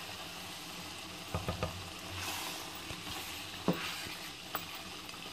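Cabbage and mutton curry sizzling in a nonstick pot while a wooden spoon stirs it, frying down well (bhuna). The spoon knocks against the pot a few times, in a quick cluster about a second and a half in and once more near four seconds.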